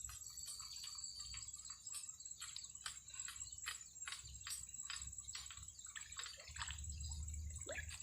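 Irregular light clicks and ticks, several a second, over a steady high-pitched insect drone.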